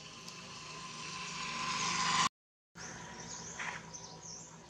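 A vehicle coming along the road, its noise rising steadily and then cutting off abruptly about two seconds in. After about half a second of silence, birds chirp over a faint insect drone.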